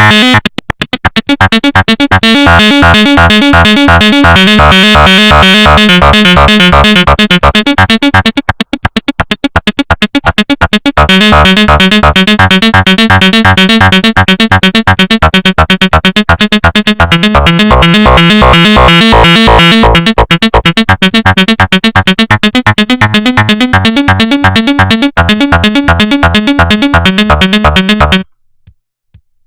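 Make Noise 0-Coast synthesizer playing a loud, fast arpeggio of short repeating notes. The low notes drop out for about two seconds some nine seconds in, and the sound cuts off suddenly near the end.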